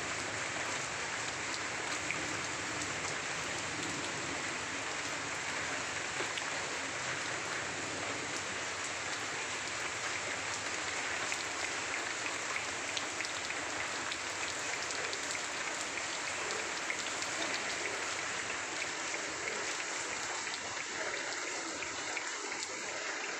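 Heavy rain falling steadily, an even hiss with faint scattered drip ticks.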